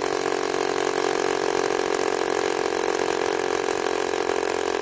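Corded power drill running steadily at full speed, its masonry bit boring into wet concrete.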